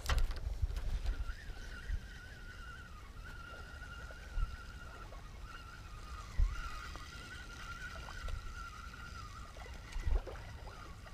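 Spinning reel being cranked to retrieve a lure, a faint wavering whir that runs steadily from about a second in until near the end. Wind rumbles on the microphone, with a few low thumps.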